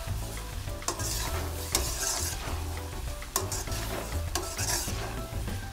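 A metal slotted spoon stirs and scrapes thick mashed eggplant (baingan bharta) as it cooks in a metal kadhai. There is a scrape about once a second with a few clinks of spoon on pan, over a low steady hum.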